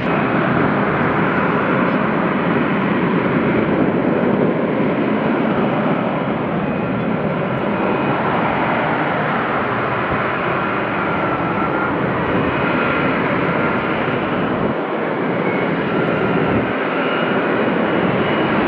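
F-35B Lightning II hovering in short-takeoff/vertical-landing mode. Its F135 jet engine and shaft-driven lift fan make a loud, steady roar with a faint high whine over it.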